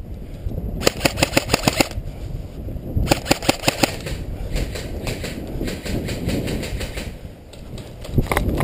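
Airsoft guns firing in rapid bursts of sharp clicks, about a dozen shots a second: a burst of about a second near the start, another about three seconds in, then looser runs of shots and a last burst near the end.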